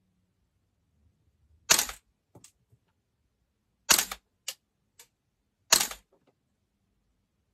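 Airsoft gun firing three single shots about two seconds apart, each a sharp crack followed by a few fainter clicks, while a newly mounted ArmaSight Tango6T sight is being zeroed.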